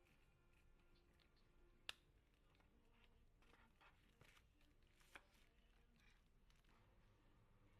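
Near silence with a few faint clicks, the clearest about two seconds in and another about five seconds in.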